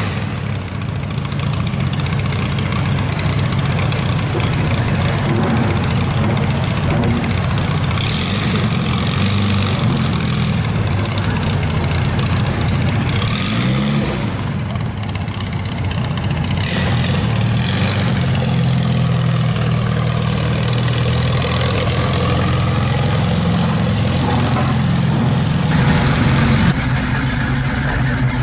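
Vintage tractor engine idling steadily, sagging briefly about halfway through, then running on. Near the end a classic muscle car's engine takes over, louder.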